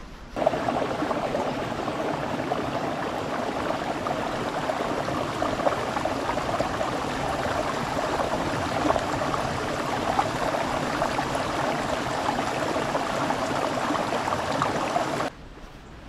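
Water of a small stream running and babbling steadily. It cuts in just after the start and cuts off abruptly near the end.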